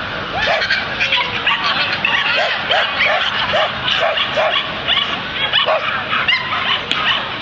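A small dog yapping over and over in a steady rhythm, about two or three high yaps a second, easing off near the end.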